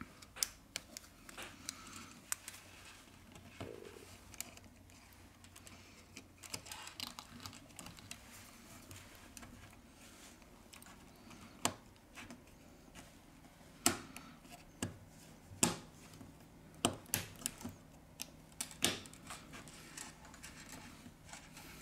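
Irregular small clicks and taps of parts being handled and pressed into a Sony Xperia M2 smartphone's frame as its motherboard and cable connectors are refitted, the sharpest clicks bunched in the second half.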